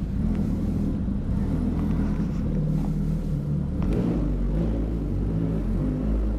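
Suzuki Hayabusa 1300's inline-four running through a Brocks full aftermarket exhaust system at low revs as the bike rolls slowly, a loud, steady exhaust note.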